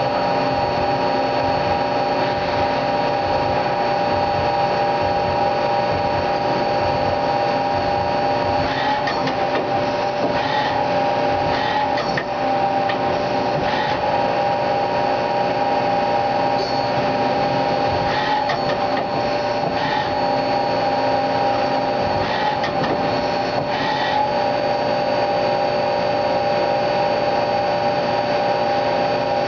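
1997 Mazak Quick Turn 20 CNC lathe running a program: a steady machine whine made of several tones, broken in the middle part by short clacks every second or few seconds as the turret indexes between tools.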